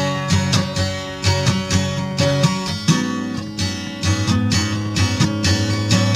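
Acoustic guitar strumming chords in a steady rhythm, without singing.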